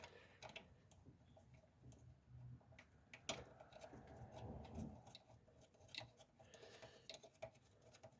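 Near silence with faint, scattered clicks and light knocks of engine parts being handled and fitted by hand.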